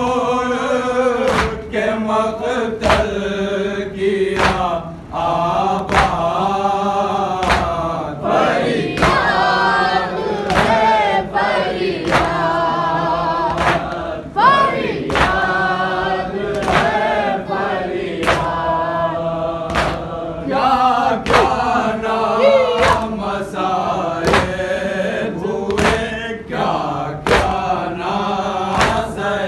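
Men chanting a noha, a Shia lament, in unison at a steady beat. Sharp slaps of matam, hands striking chests, come about every three-quarters of a second.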